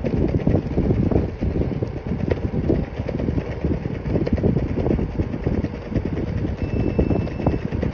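Uneven, gusty low rumble of wind buffeting the microphone, mixed with road noise, while riding a scooter along asphalt.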